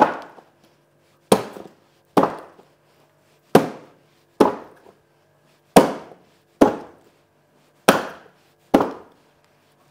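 Pork brisket being chopped into portions with a heavy blade, about nine sharp chops through the meat onto the block, mostly in pairs.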